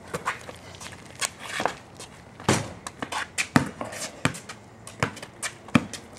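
Basketball bouncing on a concrete court as a player dribbles, the bounces coming irregularly a second or less apart.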